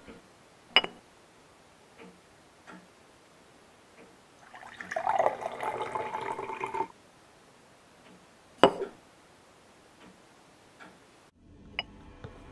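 Glassware on a drinks tray: a sharp glass clink with a short ring, a few light taps, then a drink poured from a glass decanter into a glass for about two seconds, and another sharp glass clink.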